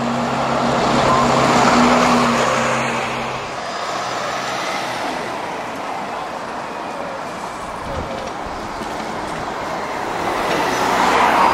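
Double-decker buses driving past close by: a bus engine hums steadily as the first bus passes, swelling to a peak about two seconds in. It falls back to steady street traffic, then a second bus's engine and tyre noise builds to a peak as it passes near the end.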